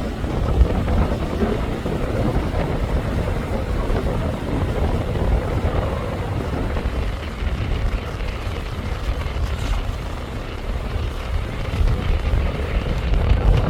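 Strong wind buffeting the microphone: a continuous low rumble that flutters with the gusts.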